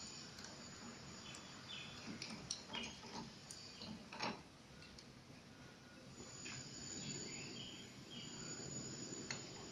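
Faint clicks and rustles of hands handling the pad printer's parts, mostly in the first half. From about six seconds in, a steady faint high-pitched tone comes in.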